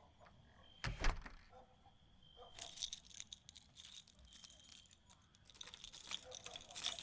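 A single thump about a second in, then a bunch of keys jangling on and off.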